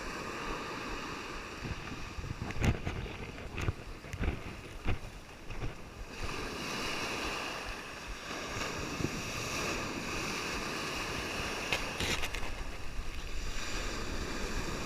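Ocean surf washing on the beach, with wind buffeting the microphone and a few short bumps.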